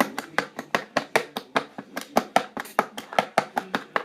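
A knife rapidly chopping through kinetic sand, a quick run of sharp taps, about five or six a second, as the blade strikes the surface beneath.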